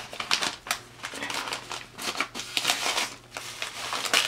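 Model packaging being opened by hand: an irregular run of rustling, crinkling and scratchy clicks from cardboard and plastic wrapping.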